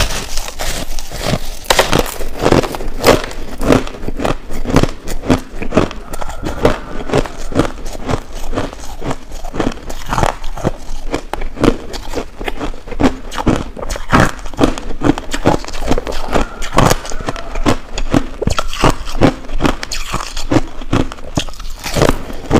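A person chewing a mouthful of finely crushed ice close to a lapel microphone: a rapid, unbroken run of hard, crackling crunches.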